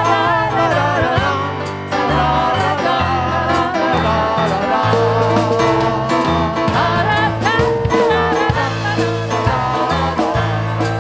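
Worship song: voices singing over instrumental accompaniment, with a bass line that moves to a new note every second or so.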